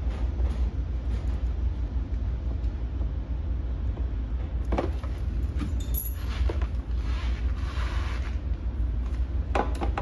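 A few small metallic clicks and rustles from wire ring terminals and cables being handled, over a steady low hum.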